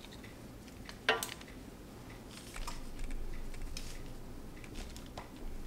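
Two metal spoons clinking and scraping as sticky biscuit dough is scooped from a glass bowl and pushed off into an air fryer basket. One sharp, briefly ringing clink about a second in, then softer scrapes and light taps.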